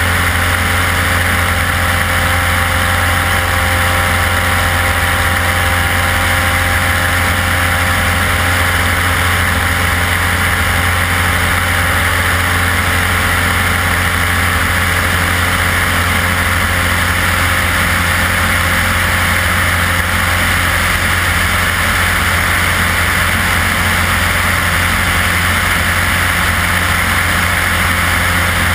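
Single-engine light aircraft's propeller engine running steadily in flight, a constant low drone with wind rushing hard over the outside-mounted camera's microphone.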